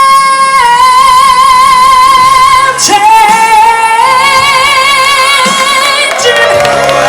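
A woman belting long, held high notes with a wide vibrato, stepping up and down between pitches. Near the end, crowd cheers and whoops start to rise under the voice.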